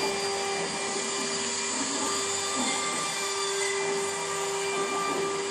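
Steady high-speed whine and hiss of a Denford CNC mill, its cutter spinning at about 23,000 rpm while it machines a model car body.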